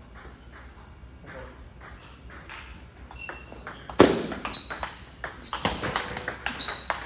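Table tennis rally: a celluloid-type ball clicking off rubber paddles and bouncing on a JOOLA table. Light ticks for the first few seconds, then a loud, hard forehand hit about four seconds in, followed by a quick exchange of sharp hits and bounces with a short ringing ping.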